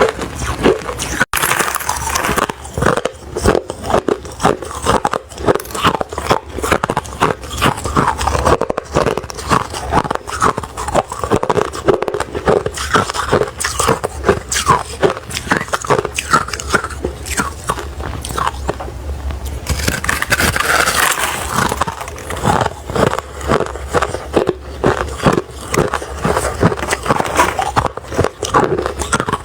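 Close-miked biting and chewing of refrozen crushed ice, a dense run of crisp crunches several times a second. About two-thirds through, the crunching breaks off briefly for a short scraping rush, then carries on.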